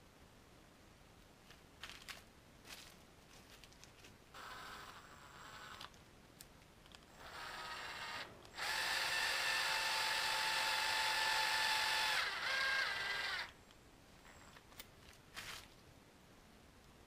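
Electric power drill run in bursts: a short run about four seconds in, then a longer steady whine of about five seconds that dips slightly in pitch just before it stops. Small clicks and handling knocks come before and after.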